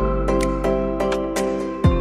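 Background music only: a soft, steady instrumental track with sustained notes, a bass note changing about every two seconds and light percussive ticks.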